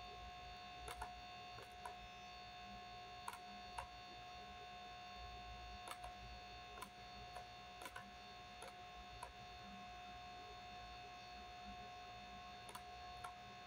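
Very faint steady electrical hum with a high whine, with a few faint short clicks scattered through it.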